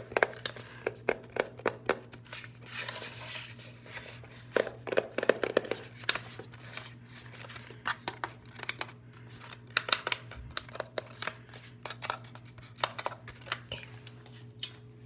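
Fingernails tapping and scratching on the plastic body of a Fujifilm Instax Mini 7S instant camera: quick, irregular clicking taps with a few short scratchy rubs.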